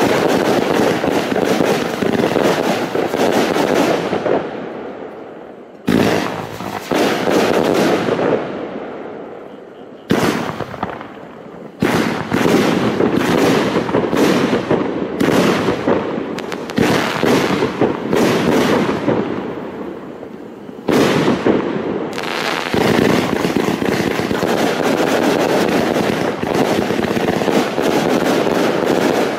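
Cloud Connected, a 259-shot 30 mm fireworks cake, firing: volleys of shots bursting into stars with dense crackling. Through the middle the shots come one at a time, about one a second, before a last long volley near the end.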